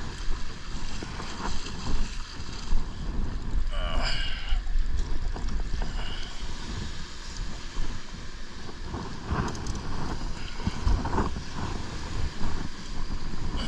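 Wind buffeting the microphone over the wash of breaking surf on a beach. A short pitched call, like a voice, cuts through about four seconds in.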